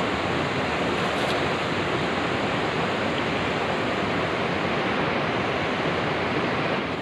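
Steady rushing of a fast river flowing over and around boulders, an even roar of water with no breaks.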